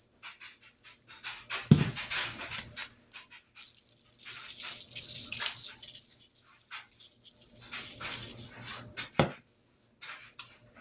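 Seasoning shaker shaken over raw chicken legs, grains rattling and hissing in short repeated bursts, with a couple of dull knocks, about 2 s in and again near the end.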